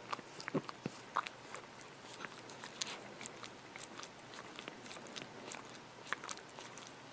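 Hairless Munchkin cat licking a pane of glass, its tongue making quick, irregular wet clicks and smacks on the glass.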